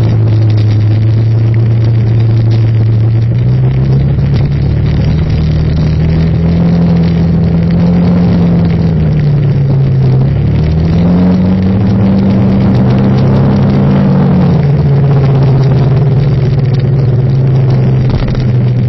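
A vehicle engine running at low speed. Its pitch rises about four seconds in, falls back near ten seconds, rises again shortly after, and settles lower near fifteen seconds, following the throttle.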